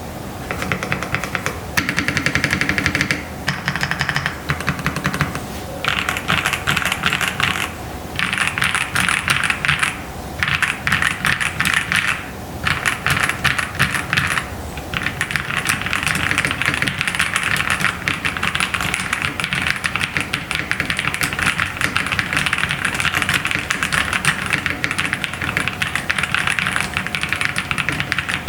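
Typing on an Epomaker Type65 mechanical keyboard with EPO Bluebird switches: fast, continuous key clicks, broken by brief pauses several times in the first half, then unbroken to the end.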